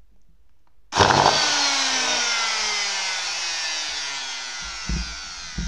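Circular saw's brushed motor switched on about a second in, then spinning down with a steadily falling whine, with a couple of low knocks near the end. The brushes spark badly at the commutator, which the owner puts down to a half-eaten commutator segment shorting in the rewound armature.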